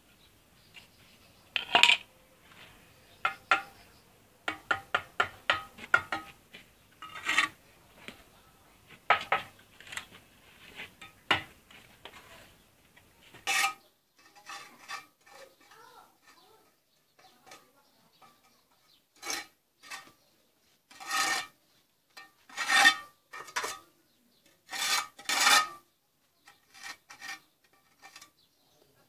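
Steel mason's trowel working a brick column: quick sharp taps and short scrapes on brick and mortar, then longer separate scraping strokes along the brick face, about one a second, in the second half.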